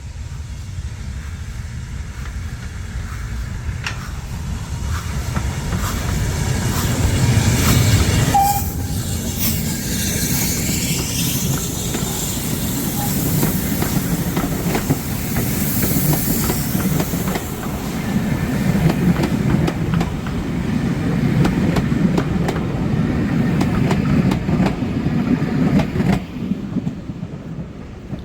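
Steam-hauled heritage train running along the track, its wheels clicking over the rail joints. It grows louder over the first eight seconds or so, then keeps up a steady rumble until it drops away near the end.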